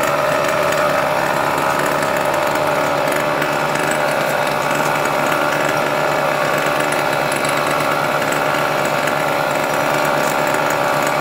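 A large engine running steadily at a constant speed, with an even, unchanging drone.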